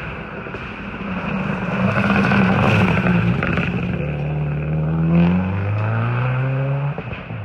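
Rally car engine under load: rough, noisy running about two to three seconds in, then the revs climb steadily for about three seconds and drop sharply near the end.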